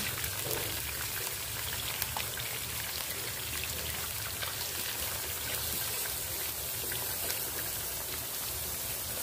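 Raw chicken pieces frying in hot oil in a wok: a steady sizzle with many small crackles and spits.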